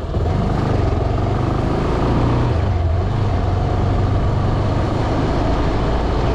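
Motorcycle engine running steadily at cruising speed.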